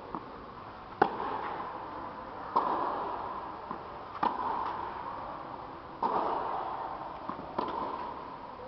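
Tennis rally: racket strings striking the ball back and forth, one sharp pock about every one and a half seconds, six in all, with faint ball bounces between. Each hit rings on in the echo of a large indoor tennis hall.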